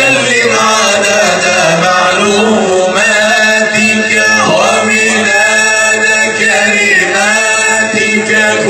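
Group of men chanting an Arabic nasheed together, with long drawn-out melodic phrases over a steady low drone.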